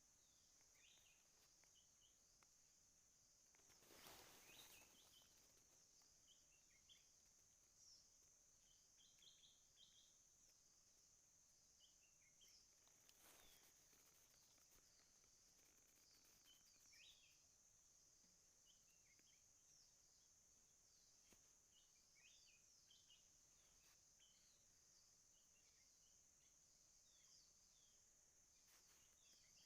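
Faint natural ambience: a steady high-pitched insect buzz with scattered short bird chirps, and two brief rustling noises about four and thirteen seconds in.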